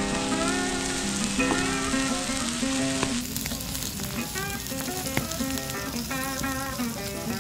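Green onions sizzling as they grill over high heat, with background music carrying a melody over it.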